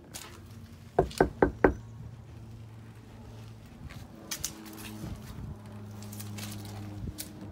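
Four quick knocks on a front door, about a second in, followed by a few fainter taps and clicks.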